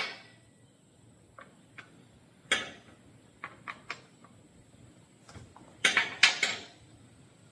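Clicks and clatter of hard objects being handled and set down while working on a chainsaw: a sharp knock at the start, another about two and a half seconds in, scattered light clicks, and a burst of clattering about six seconds in.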